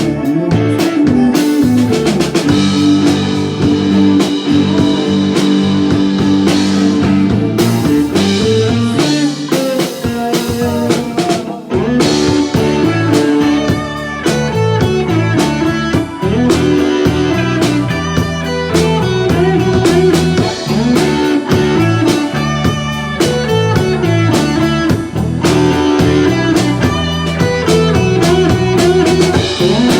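Blues-rock band music with guitar and drums. The drum beat comes in more steadily about twelve seconds in.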